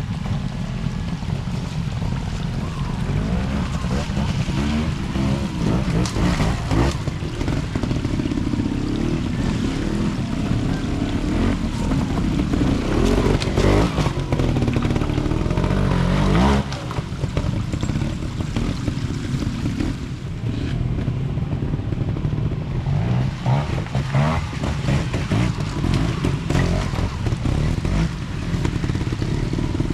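Trials motorcycle engine revving up and down over and over as it is ridden through an observed section, with a sudden drop in level about halfway through.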